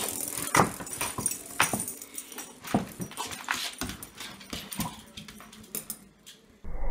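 Dog whimpering while pawing at a small round toy on a hardwood floor. Scattered clicks and taps of claws and toy on the wood die away about six seconds in.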